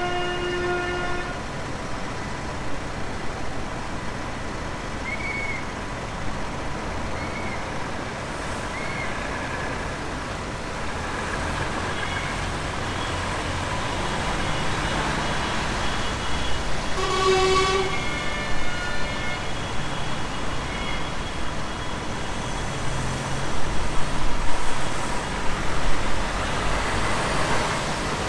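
Road traffic of lorries and tractors running past, with a vehicle horn sounding at the start that cuts off about a second in and a second horn blast about a second long near two-thirds of the way through. The engine noise grows louder near the end as a lorry with a trailer passes close by.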